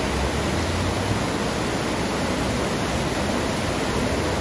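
Fast mountain stream rushing over a rocky cascade: a steady, even rush of water.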